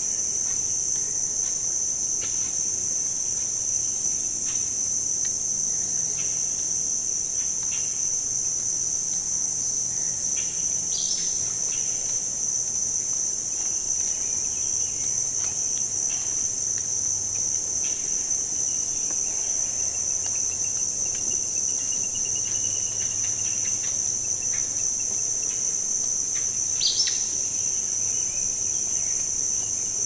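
A steady, high-pitched insect chorus buzzing without pause, with a few faint bird chirps over it, the clearest about a third of the way in and again near the end.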